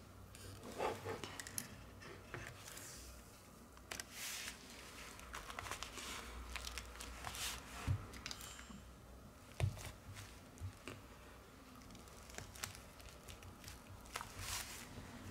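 A clear plastic bag crinkling as a phone is handled on it, with scattered light clicks and taps from the phone's parts.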